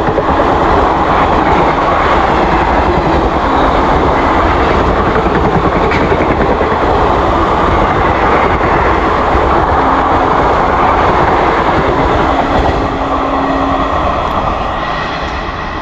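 ICF passenger coaches of the Doon Express rushing past at speed: a loud, steady rush of wheel and rail noise that fades near the end.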